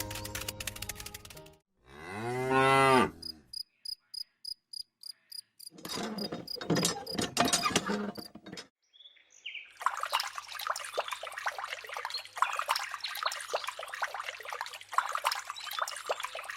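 A cow moos once, one call that rises and falls in pitch, about two seconds in; it is the loudest sound here. Before it comes a short stretch of music, and after it a run of quick ticks, then a long spell of crackling noise.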